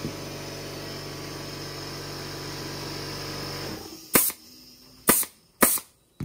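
Pneumatic upholstery stapler firing staples through fabric into press board: three sharp shots in the last two seconds. Before them a steady machine hum runs, then cuts off suddenly about four seconds in.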